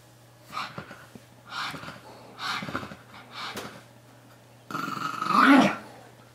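Pug growling in short bursts during rough play with a toy, about one a second, then a longer, louder growl near the end.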